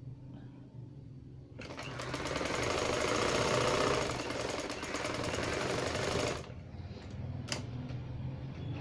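Sewing machine stitching through cloth for about five seconds, a fast even clatter of needle strokes, then stopping abruptly. A single sharp click follows a second later.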